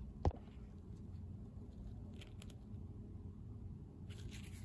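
Handling noises from a smashed iPhone on a workbench over a low steady hum: one sharp click shortly after the start, two faint clicks around the middle, and a brief rubbing of a gloved hand on the phone near the end.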